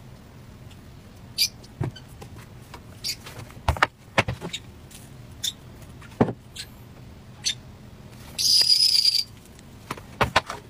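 Light clicks and taps of crepe-making at an electric crepe maker, as the thin crepes and the pan are handled. About eight and a half seconds in there is a louder scraping noise with a high whistle-like edge, lasting under a second.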